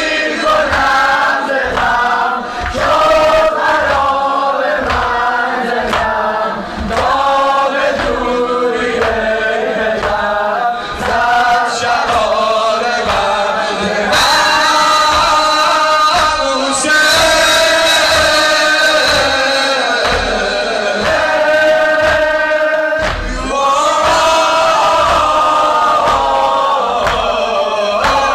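A Shia mourning chant (noha) sung by a group of men in unison, with the crowd chanting the refrain over a steady low beat.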